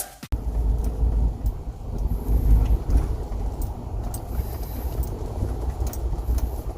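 Car on the move: a steady low rumble of road and wind noise, with a few faint clicks.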